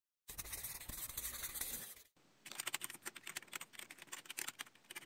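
Pen scribbling on paper: a continuous scratch for nearly two seconds, a short break, then a run of quick scratchy strokes.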